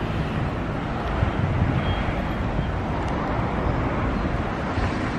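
Steady city street traffic: cars driving past close by on a multi-lane avenue, a continuous rumble of engines and tyres, with some wind rumble on the microphone.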